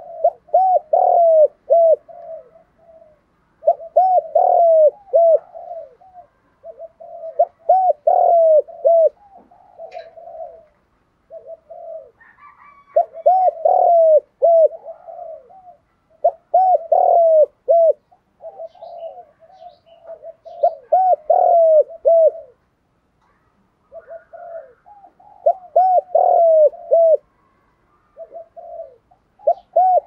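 Spotted dove cooing: repeated phrases of short, low coos, a new phrase starting every three or four seconds.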